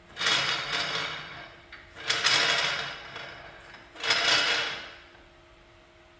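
Tall underhoist support stand being adjusted under a lifted vehicle: three sliding, scraping strokes of its metal pole, about two seconds apart, each fading off.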